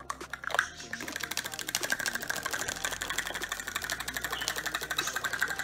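Rapid, even rattling from a sun conure bobbing its head fast with a red plastic cup.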